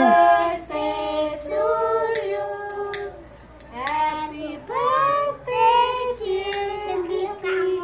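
Children singing together in slow, held notes, phrase by phrase, with a short pause about three seconds in.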